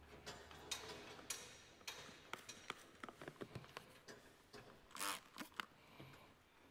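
Faint, irregular clicks and small knocks of hands working with tools and materials, with a short hiss about five seconds in.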